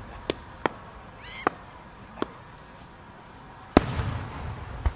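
Aerial fireworks shells going off: a few sharp, quieter cracks, then a single loud bang about four seconds in as a large shell bursts, its low rumble rolling on afterwards, and another bang right at the end.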